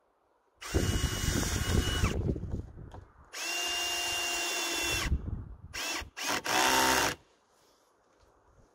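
Cordless drill driving screws into a wooden support strut: two steady runs of motor whine of a second and a half or so each, then three short bursts.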